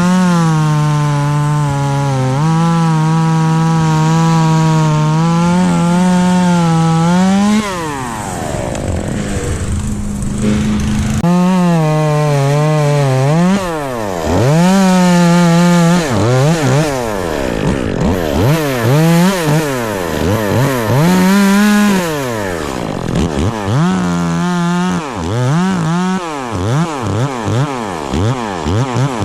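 Two-stroke chainsaw held near full throttle for about seven seconds, its pitch sagging slightly as under cutting load. It then drops to idle and is revved up and down in a run of short blips.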